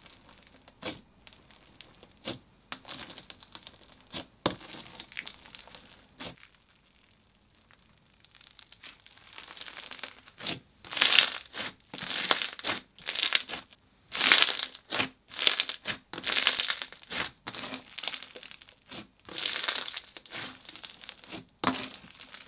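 Clear-based sugar scrub slime being squeezed and folded by hand, crackling and crunching as the sugar granules and trapped air pockets are pressed. Soft crackles at first, a short pause, then louder, sharper crunches from about halfway through.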